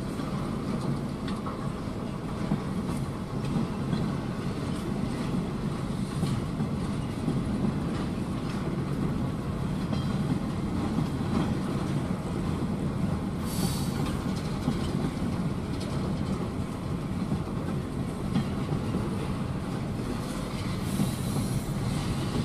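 Freight cars of a slow-moving train rolling past: a steady rumble with the clicking of wheels over the rail, and a short high hiss about two-thirds of the way through. Near the end the sound swells slightly as the GP38-2 diesel locomotive shoving the cars draws near.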